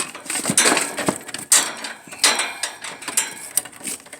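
Irregular clicks, rattles and scrapes of hand work on an air-conditioning condenser's low-voltage wiring.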